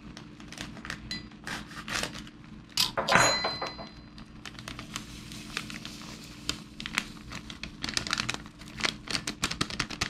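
Crinkling and crackling of an MRE foil-laminate drink-mix pouch as it is cut open with a knife and tipped over a glass, with one louder tearing rasp about three seconds in.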